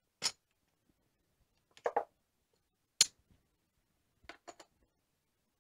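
Casino chips clicking as they are set down and stacked on a craps table: a handful of separate sharp clicks, a couple of them in quick pairs.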